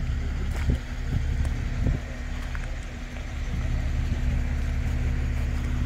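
An engine idling steadily, with a few short knocks or pops in the first two seconds.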